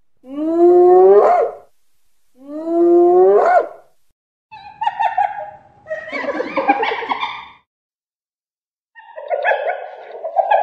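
Wild carnivore calls. Two long whoops rise steadily in pitch, each about a second and a half. Then come two rougher, buzzy chattering bouts, the first about three seconds long and the second starting about nine seconds in.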